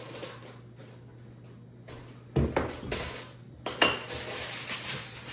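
Dishes and cutlery clattering: a click at the start, then from about two seconds in a run of sharp knocks with scraping between them.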